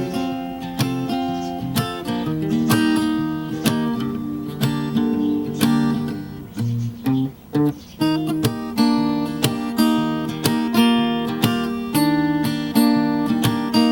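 Acoustic guitar strummed steadily through an instrumental break in a folk song, with no singing.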